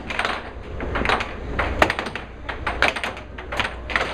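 Air hockey puck clacking against plastic mallets and the table rails in quick, irregular knocks, one of the sharpest about halfway through.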